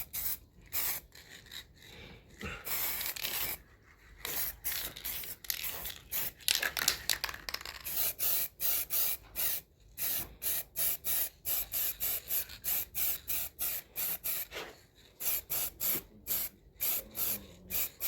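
Aerosol can of yellow high-heat caliper spray paint spraying in short hissing bursts, about two or three a second, with a couple of longer continuous sprays early on and midway, as a coat goes onto a metal bench vice.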